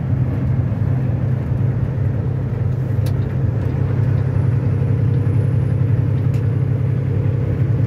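Inside the cab of a diesel truck cruising at highway speed: a steady low engine drone with road and wind noise, loud and unchanging.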